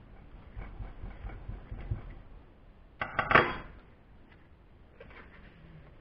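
A steel rod tamping sodium silicate core sand into a wooden core box with a run of dull thuds, then a loud metallic clatter about three seconds in as the rod is set down on the workbench.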